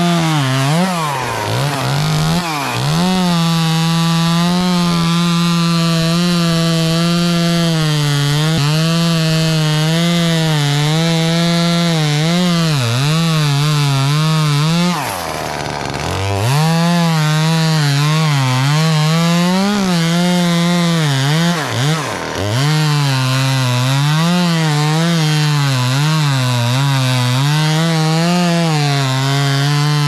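Two-stroke chainsaw running at high revs and cutting wood, its pitch wavering as the chain loads and frees. About halfway through the throttle is let off and it drops to idle for about a second, then it dips briefly again a few seconds later.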